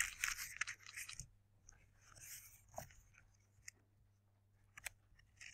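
Paper rustling as pages are turned to look up a passage, loudest in the first second, then faint rustles and a few soft clicks over a low steady hum.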